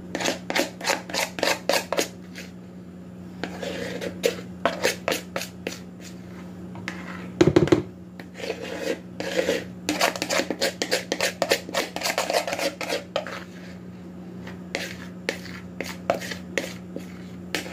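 Metal spoon scraping pancake batter out of a bowl into a plastic measuring pitcher, in clusters of quick strokes, with one heavier knock about halfway through. A steady low hum runs underneath.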